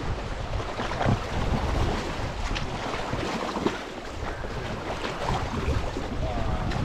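Wind buffeting the microphone in uneven low rumbles over a steady rush of river water.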